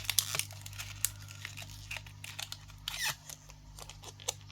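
Packaging crinkling and tearing as a small package is opened by hand, with scattered light clicks and rustles.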